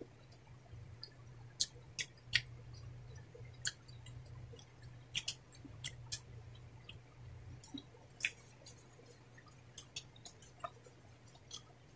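Close-miked chewing by two people eating with their hands, with irregular sharp wet clicks from mouths and fingers over a low steady hum.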